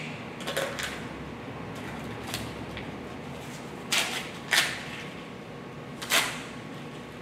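Packing tape being pulled and torn off the end of a cardboard shipping tube: a series of short tearing sounds, the loudest three about four, four and a half and six seconds in.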